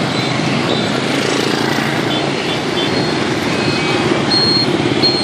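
Dense city traffic of motorbikes and scooters with cars mixed in, their engines running steadily as they stream past close by, with a few short high beeps near the end.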